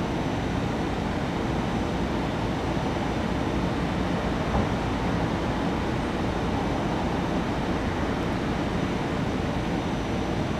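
GE Silverliner IV electric multiple-unit train standing at the platform, its onboard equipment running with a steady, even rumble and hum.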